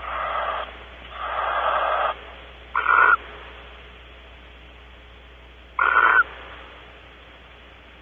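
Barn owl giving four harsh, rasping screeches: two longer ones in the first two seconds, then two shorter, louder ones about three and six seconds in. A steady low hum runs underneath.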